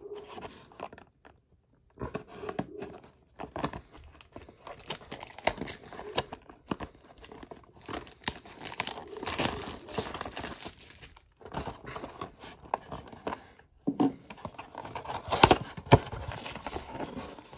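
Plastic shrink wrap being torn and crinkled off a cardboard trading-card blaster box, an irregular run of rustles and tears with a few short pauses. Near the end, the box's cardboard flap is pulled open.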